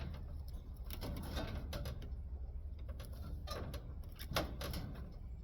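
Scattered sharp metal clicks and snaps of side cutters and copper tubing being cut and worked loose from an air conditioner coil, the loudest snap about four and a half seconds in, over a steady low rumble.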